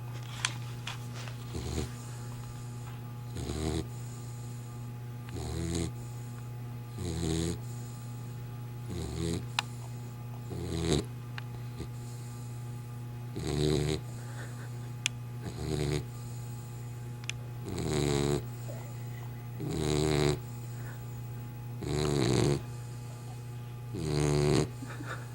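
Snoring: a long, rasping snore about every two seconds, growing longer and louder over the last several breaths, over a steady low hum.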